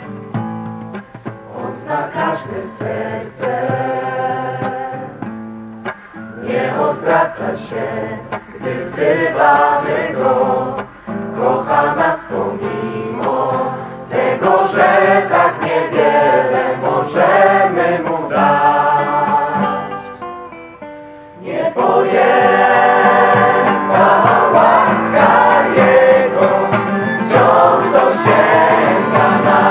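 A mixed group of men's and women's voices singing a Polish hymn together. The singing drops away briefly about two-thirds of the way through, then comes back louder.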